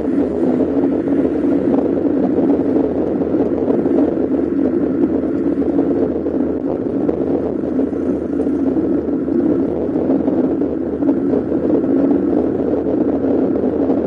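Steady rolling rumble and wind noise from a camera mounted on a moving bicycle.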